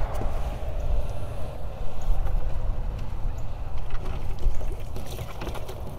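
Cast net hauled up out of the water by its rope, water splashing and dripping off the mesh from about four seconds in, over a steady low rumble.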